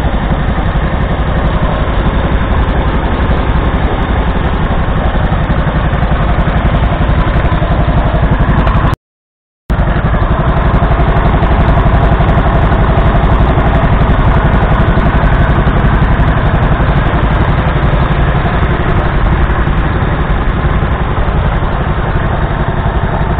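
1969 Martin Markham Colt tractor's 1.0-litre petrol engine running steadily at idle, heard close up, with a silent gap of under a second about nine seconds in.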